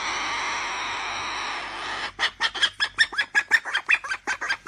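A bird makes a long harsh call for about two seconds, then breaks into a fast run of short clucks, about six a second.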